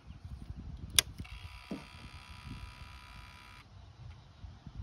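The Ducati MH900e's ignition key switches on with a sharp click about a second in. Then the electric fuel pump buzzes steadily for about two and a half seconds as it primes and cuts off suddenly, with the engine not yet running.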